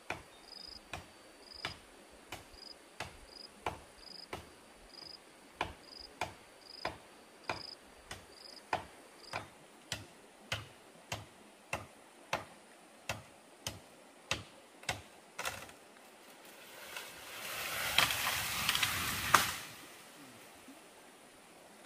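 Sharp knocks repeating about twice a second for some fifteen seconds, with a faint high chirp repeating under the first half. About three seconds of louder hissing noise follow before it goes quiet.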